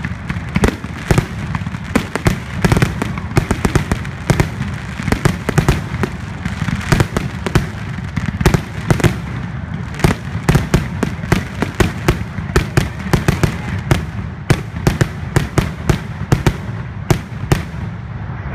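Fireworks finale barrage: a rapid, continuous string of loud aerial shell bursts, several bangs a second over a steady low rumble.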